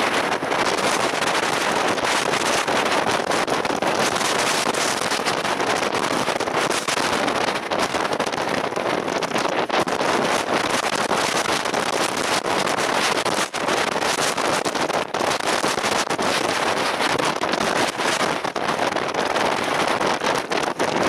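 Steady, loud rushing noise with no distinct events, even across the whole stretch.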